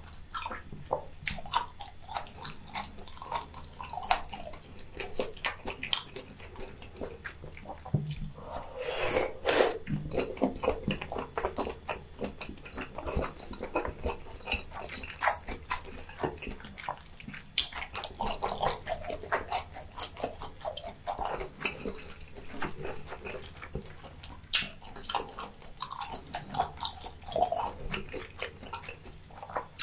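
Close-miked wet chewing of a whole abalone: many irregular sticky clicks and smacks of the mouth, louder in a few bunches.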